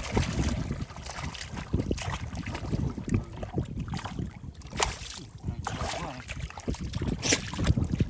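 Shallow water splashing and sloshing in irregular bursts, with a few louder splashes near the end.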